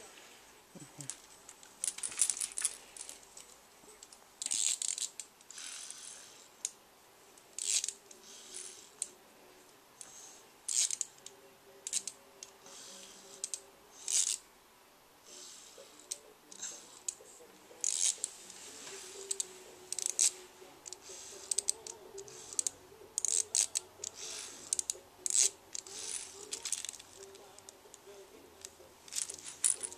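A baby's plush rattle toy being shaken and handled in small hands: short, irregular bursts of rattling, about one every second or so.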